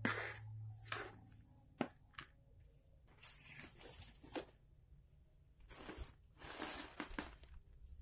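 Irregular bursts of gritty scraping and crunching as damp homemade compost is stirred in a plastic pot, with rustling near the end when a woven plastic sack is laid over it.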